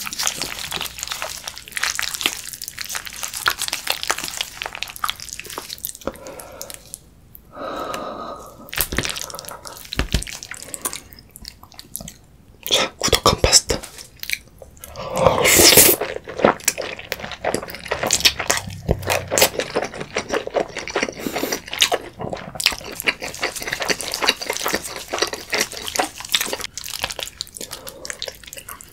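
Close-miked sticky, wet sounds of thick cream pasta being stirred and lifted out of its tray with a fork and gloved fingers, then eaten with wet mouth sounds. A run of small clicks and smacks, with one louder burst about halfway through.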